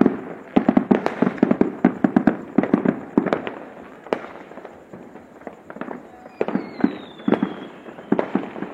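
Fireworks and firecrackers going off in rapid succession as sharp bangs and pops. They come densely for the first three to four seconds, then thin out to scattered bangs.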